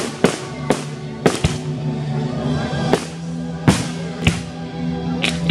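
Aerial firework shells bursting in about nine sharp bangs at uneven intervals, over steady background music.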